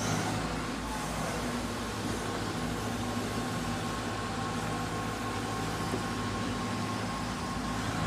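Diesel engine of a SANY SY155W wheeled excavator running steadily while it digs.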